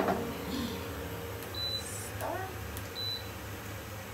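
Two short, high electronic beeps about a second and a half apart, over a steady low hum, with a single knock right at the start.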